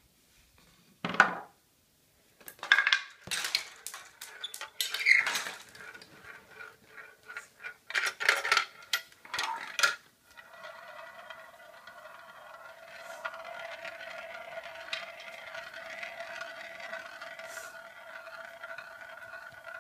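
Marbles clattering down a plastic marble run, a scatter of sharp clicks and knocks over the first half. About halfway through it gives way to a steady, even whirr as a marble spins round and round inside the run's plastic funnel bowl.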